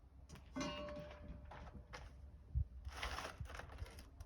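Steel circular saw blade clinking and ringing with a sustained metallic tone as it is set down, followed by a low thump and a brief rustle.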